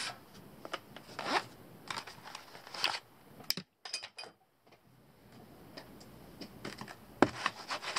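Zip on a fabric pouch being pulled shut in two short strokes about a second and a half apart, with light handling clicks and rustles around it.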